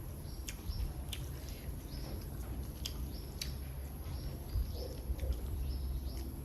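Small birds chirping: short, high calls falling in pitch, coming about twice a second, over a steady low rumble with scattered sharp clicks.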